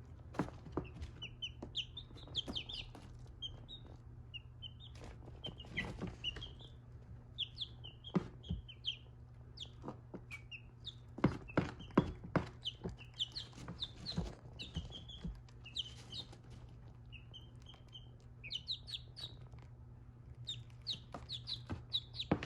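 Baby chicks peeping in short, high chirps while pecking at cat food, with sharp irregular taps of beaks on the food and dish, over a steady low hum.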